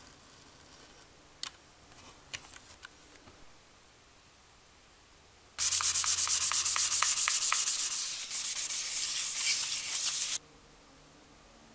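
Hand sanding a thin round clock plate with a small piece of sandpaper: rapid back-and-forth scraping strokes, loud and high-pitched. It starts about halfway through, eases slightly partway, and stops shortly before the end.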